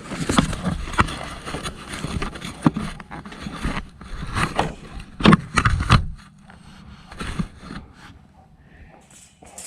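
Repeated knocks, clatter and scraping from things being handled, busy for about six seconds and then dying down to a few faint knocks.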